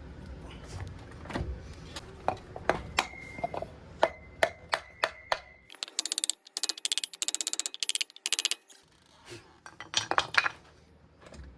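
Light metal taps on a new front wheel hub bearing assembly as it is worked into the steering knuckle, some strikes leaving a brief metallic ring. About halfway through comes a few seconds of rapid high rattling, and a few more knocks follow near the end.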